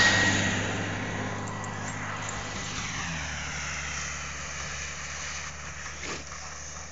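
An engine passing by, loudest at the start and fading over the first two seconds into a steady low hum.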